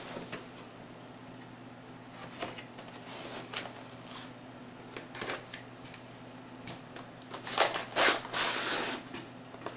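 Cardboard product box being handled and cut open with a utility knife: scattered taps and short scrapes, then a louder, longer rasping scrape of cardboard near the end.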